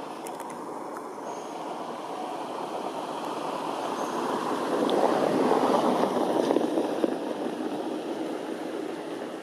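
A vehicle passing by: a steady rushing noise that grows louder to a peak about halfway through, then fades away.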